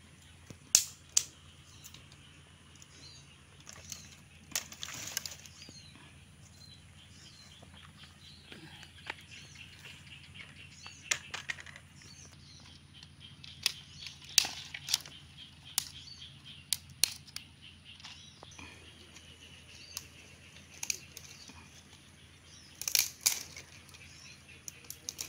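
Dry twigs and sticks snapping and rustling as they are broken and gathered by hand: a scattered series of sharp cracks, with the loudest cluster near the end.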